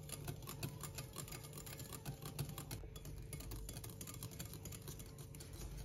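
Wire balloon whisk beating thick hot agar pudding mixed into beaten egg whites in a glass bowl by hand: a fast, irregular run of light clicks and taps as the wires strike the bowl.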